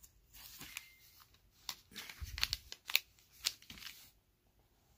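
Paper rustling and crinkling as the pages of a Bible are handled, a run of short crackles that stops about four seconds in.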